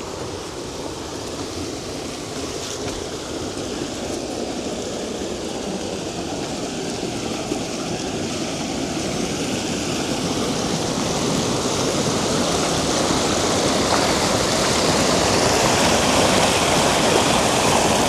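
Creek water rushing steadily, growing gradually louder through the second half.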